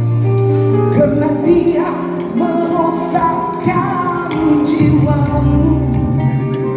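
A live band playing a Malay pop song, with a voice singing the melody over the accompaniment.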